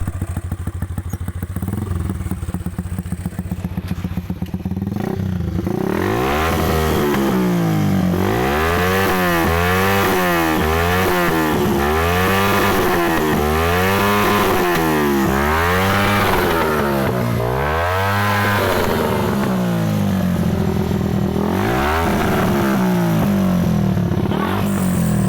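Motorcycle engine idling, then revved over and over, the pitch climbing and falling back about once a second. It settles briefly near the end, then is revved a few more times.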